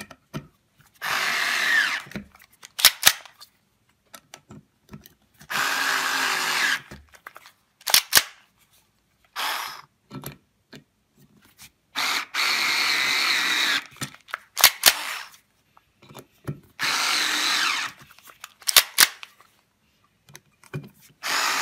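WORX SD cordless screwdriver running in five short spurts of one to two seconds each as it backs screws out of a wooden 2x4. Between spurts come sharp double clicks as the quick-change bit barrel is slid back and forth to switch among Phillips, star and flat bits.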